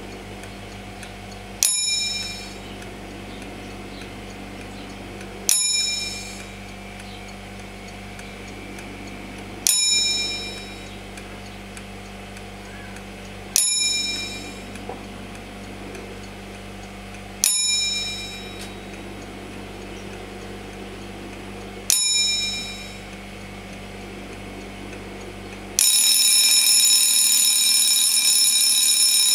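Junghans Trivox Silentic 1970s mechanical alarm clock going off: its bell gives single strikes about every four seconds, each ringing out, six in all. Then, near the end, it breaks into loud continuous ringing.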